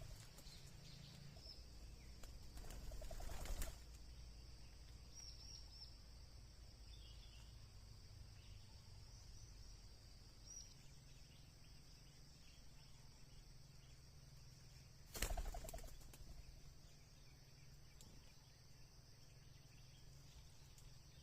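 Emerald dove giving low cooing calls twice, about twelve seconds apart, faint against a steady high background hum.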